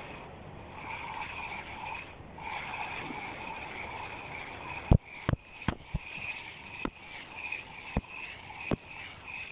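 Spinning fishing reel being wound, a steady fast whirring tick from its gears, with several sharp knocks of the rod and reel being handled from about five seconds in, the first the loudest.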